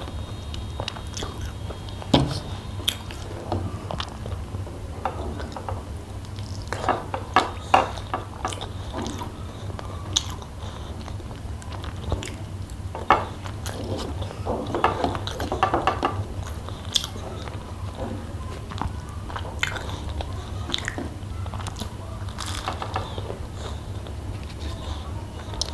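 A person eating close to the microphone: biting and chewing food, with many scattered sharp clicks and wet mouth sounds. A steady low hum runs underneath.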